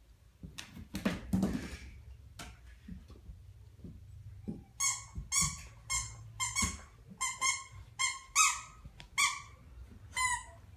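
Dog chewing a squeaky toy: a few soft knocks and rustles, then from about five seconds in a quick run of about a dozen short, high-pitched squeaks.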